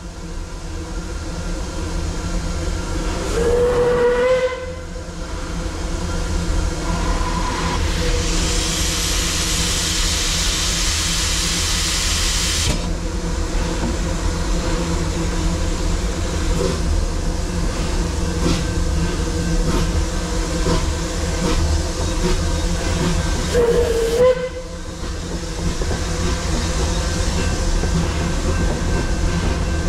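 Narrow-gauge steam locomotive heard from the cab: two short whistle blasts, one a few seconds in and one near 24 s, and a loud hiss of steam lasting about five seconds from about 8 s in, all over a steady low rumble.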